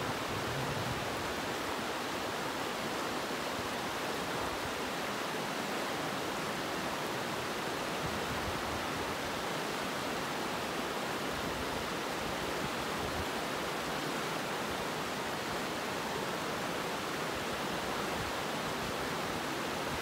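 Shallow, rocky river rushing over stones and through small rapids: a steady, even rush of water.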